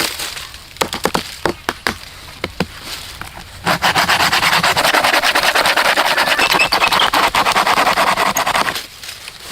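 Wood being worked by hand: a few light knocks and clicks, then about five seconds of steady rasping on wood.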